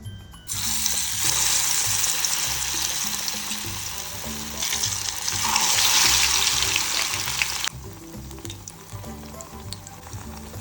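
Gram-flour-battered pumpkin flowers deep-frying in hot oil: a loud sizzle starts about half a second in and swells again around the middle. It cuts abruptly to a much fainter crackling sizzle about three-quarters through.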